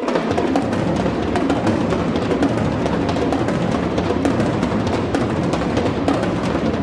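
Percussion ensemble playing a loud, dense flurry of rapid drum strokes on a large bass drum and other drums, entering suddenly and holding steady.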